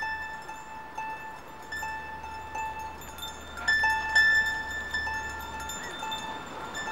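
Plucked-string music: a single high note picked over and over, about two notes a second, with a few higher notes among them, each ringing briefly and fading.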